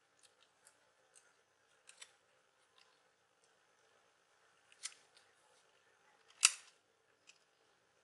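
Small scattered clicks and ticks as laptop Wi-Fi antenna cable connectors are handled and pressed onto the Wi-Fi card with a metal tool. One sharper click stands out past the middle.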